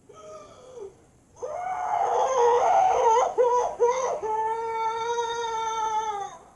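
A cartoon character crying. A short whimper comes first, then a loud, high-pitched wailing sob settles into one long held cry that falls off slightly at the end.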